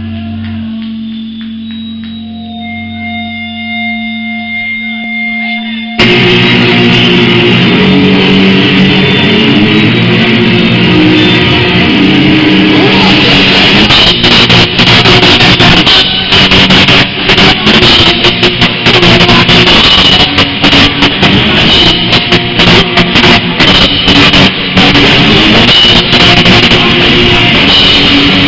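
Rock band playing live with electric guitar and drum kit. The first six seconds or so are quieter, with steady held tones, then the full band comes in suddenly and loudly.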